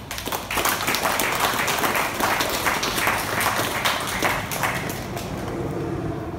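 Audience applauding. The clapping starts just after the beginning, holds loud for several seconds and dies away from about five seconds in.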